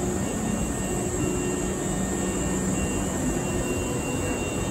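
Steady hum and whir of the Hankyu Kyo-train Garaku electric train standing at the platform with its onboard equipment running, a low held tone under an even rushing noise.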